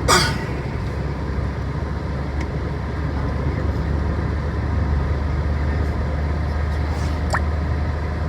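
Steady low hum of a Ford EcoSport heard from inside the car, with a short sharp sound right at the start and a fainter one near the end.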